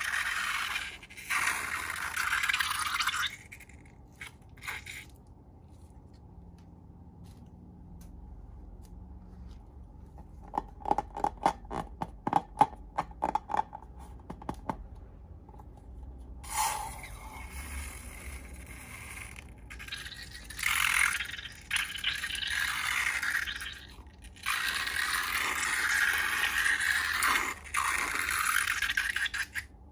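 Scraping of slime being mixed or scraped, coming in long stretches, with a run of quick sticky clicks in the middle.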